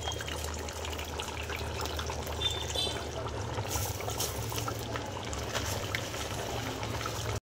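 Drained, soaked rice being poured from a bowl into a pot of mutton gravy: a steady wet pouring and trickling of grains into liquid, over a steady low hum.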